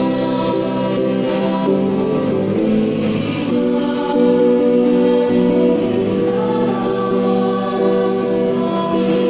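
Choir singing a slow hymn in long, held chords.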